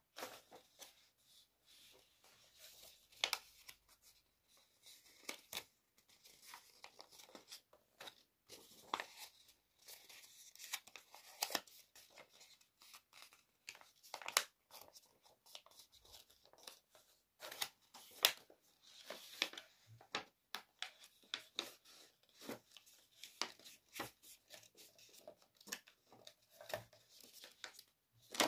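A sheet of A4 paper being folded and creased by hand into a paper airplane: irregular rustling and short, sharp crinkles as the folds are pressed flat.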